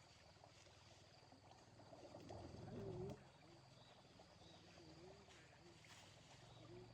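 Near silence: a faint outdoor background with a soft, wavering voice-like sound about two and a half to three seconds in, and a few fainter ones later.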